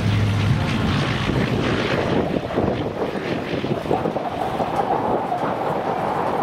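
P-47 Thunderbolt's Pratt & Whitney R-2800 radial engine running at low power as the fighter rolls along the runway, heavy wind noise on the microphone. A steady whine joins about four seconds in.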